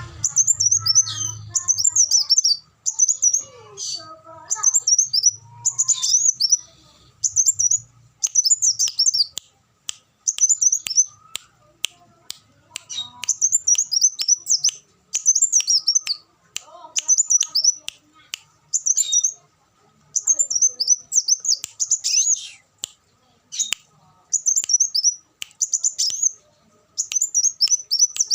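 Kolibri wulung (a sunbird) singing: short bursts of very high, rapid twittering notes, repeated about every second with brief pauses between phrases.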